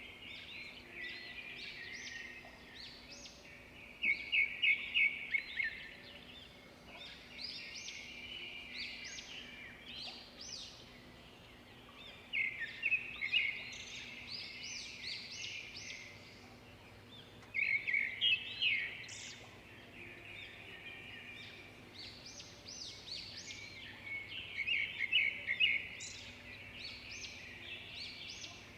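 Bird-like chirping, with bouts of rapid high chirps that come louder four times, over a faint steady background.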